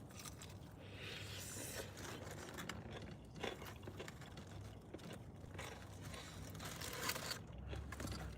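Faint crackling and tearing of hot, crispy fried chicken being pulled apart by hand.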